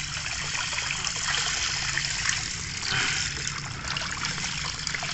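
Water from a garden hose spraying onto the plastic bed of a toy dump truck, splashing and washing out wet mud and sand. A steady spatter that swells briefly about three seconds in.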